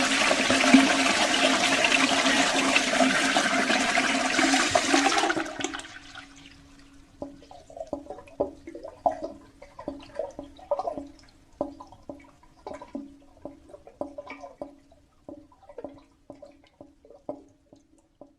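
Toilet flushing: water rushes loudly for about five seconds, then drops away suddenly to scattered drips and gurgles over a faint steady hum.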